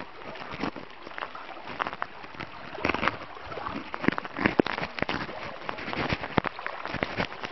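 Muddy floodwater sloshing and splashing irregularly as someone wades through it, over a steady hiss of rain and moving water.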